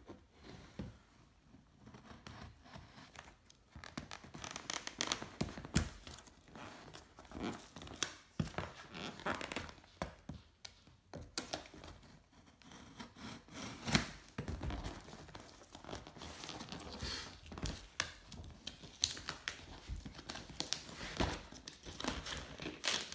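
Cardboard shipping box being cut open with a knife and its packaging torn, with crinkling and knocks from handling the box. Quiet for the first few seconds, then a busy run of irregular scraping, tearing and sharp knocks.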